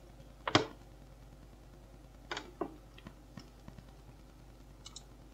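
Scattered clicks of a computer keyboard: one sharp click about half a second in, then a few fainter ones, over a low steady hum.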